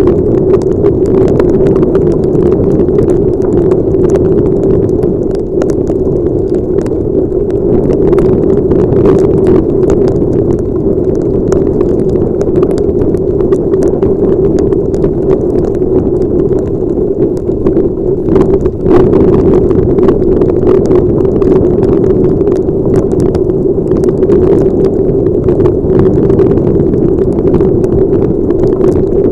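Heavy rain recorded through a helmet-mounted action camera's built-in microphone: a loud, steady rumble of wind and road noise with many sharp ticks of raindrops striking the camera housing.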